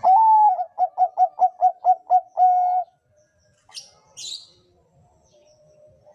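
Zebra dove (perkutut) of the Bangkok song type cooing one full phrase: a long opening coo, a quick run of about eight short pulsed notes, and a long held closing coo. Two short high chirps follow about a second later.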